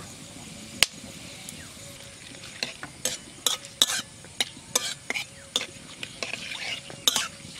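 Whole spices and bay leaves sizzling in hot mustard oil in a metal wok, with a metal spatula stirring and clicking against the pan. There is a single click about a second in, and from about two and a half seconds in a run of quick, irregular clicks.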